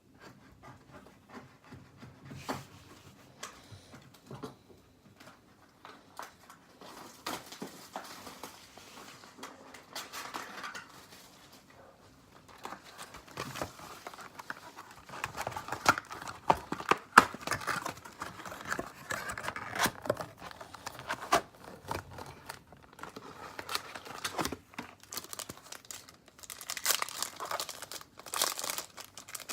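Plastic and foil wrapping crinkling and tearing as an Upper Deck SPx hockey card box and its packs are opened by hand, with small clicks and taps of handling throughout. The crinkling grows louder about halfway through and again near the end.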